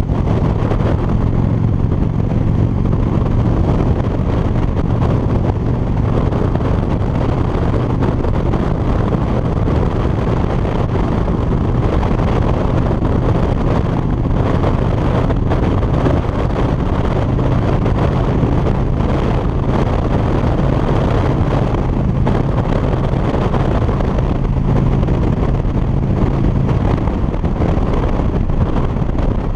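Cruiser motorcycle's engine running steadily at road speed, heard from the rider's seat with wind rushing over the microphone.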